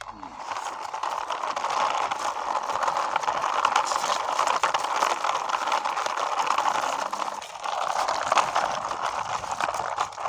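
Toy drum truck pushed along by hand, its plastic wheels rolling and rattling on the floor in one long run, with a short break about seven and a half seconds in.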